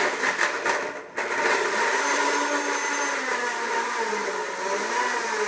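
Countertop blender pureeing a chunky pepper salsa: about a second of choppy, uneven running, a brief dip, then a steady whir.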